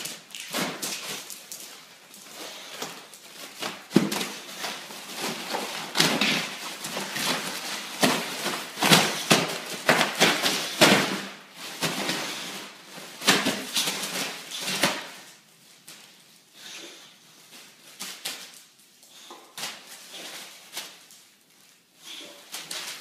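A dog biting and pawing a foil balloon: irregular crinkling, rustling and knocks. The noise is busy for about the first fifteen seconds, then sparser and quieter as the balloon lies crumpled.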